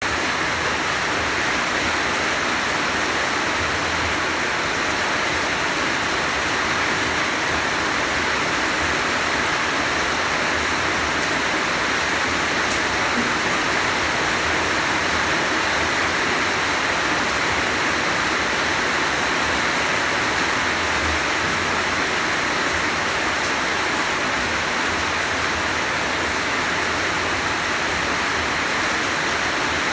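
Heavy rain falling steadily in a dense, even hiss with no let-up.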